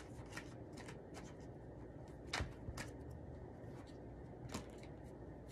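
A tarot deck being shuffled and handled by hand: soft card rustling with scattered light clicks and a few sharper card snaps, the loudest about two and a half seconds in.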